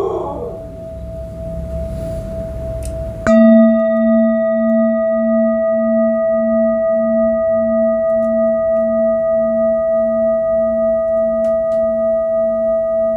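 Large metal singing bowl struck about three seconds in, then ringing on with a steady clear tone over a lower tone that throbs about twice a second, with fainter higher overtones. Before the strike a fainter steady tone from the bowl sounds over a low rumble.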